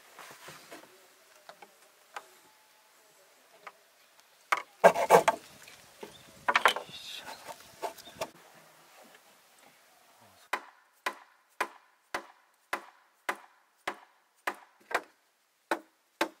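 Scattered knocks and scrapes of wood and plastic being handled, loudest about five seconds in, then a hammer striking a wooden frame in a steady rhythm of about two blows a second through the last six seconds.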